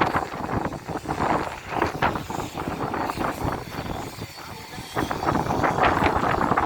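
Darjeeling Himalayan Railway narrow-gauge toy train running, heard from on board: an uneven rumble and rattle that swells and eases, loudest in the last couple of seconds.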